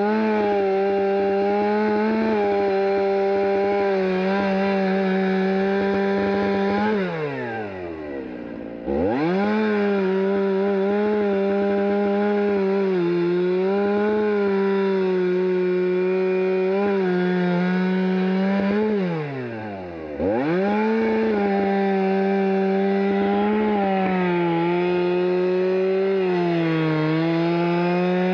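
Stihl two-stroke chainsaw running at full throttle, cutting through a fallen log. Twice, about a third of the way in and again past two-thirds, the throttle is let off and the engine winds down toward idle before being snapped back up to full revs.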